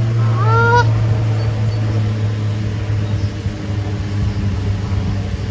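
A Canada goose gives one rising honk less than a second in, over a steady low hum and rumble.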